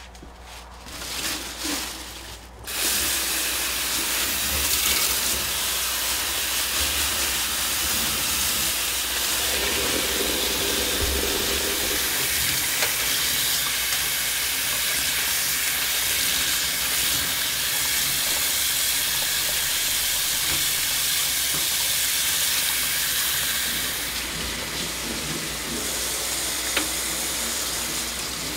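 Water running steadily from a tap, turned on about three seconds in.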